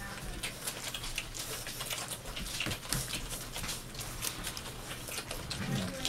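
Saint Bernard–Newfoundland cross puppies suckling from their mother, a rapid, irregular run of wet clicking and smacking, with a brief low puppy grunt near the end.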